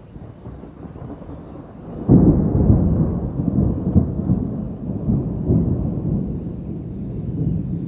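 Thunder from an afternoon thunderstorm: a low rumble swells, breaks into a loud clap about two seconds in, then rolls on with several peaks and slowly fades.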